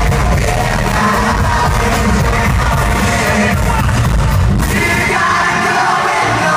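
Boy band singing an upbeat pop song live into handheld microphones over a loud backing track with a heavy bass beat, picked up from the audience on a phone.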